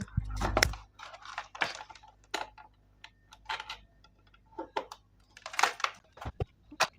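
Irregular plastic clicks and knocks of a small electronic keyboard being handled, with a dull thump in the first second; no notes sound.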